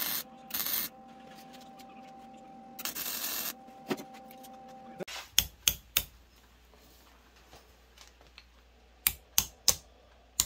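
Three short crackling bursts of a welding arc tack-welding the base of a steel rose. Then a hammer strikes the steel on the wooden stump: three quick blows a little after five seconds in, and more near the end.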